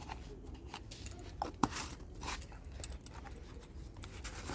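A spoon clinking and scraping against a container while baking soda is added to cake batter, in irregular light clicks with one sharper click about one and a half seconds in.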